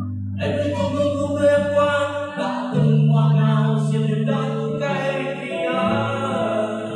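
Live singing over backing music, with long held bass notes that change every couple of seconds.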